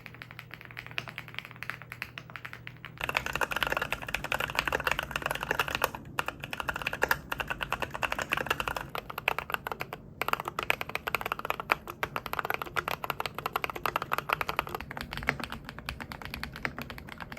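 Fast typing on a custom mechanical keyboard, a dense run of key clacks, shown one switch type after another. The clacks turn louder and brighter about three seconds in, with short pauses in the typing a few seconds later and again near the middle.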